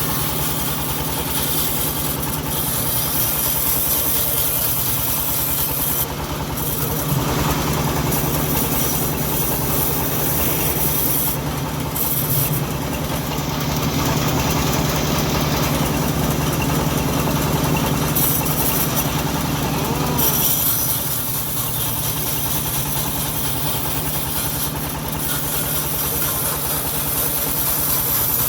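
Engine of a homemade bandsaw sawmill running steadily with an even firing rhythm. A high hiss over it dips out briefly a few times.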